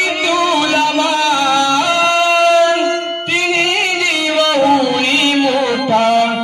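Music for a Jakhadi folk dance: a voice singing long, wavering held notes over instrumental backing, with a brief break about three seconds in.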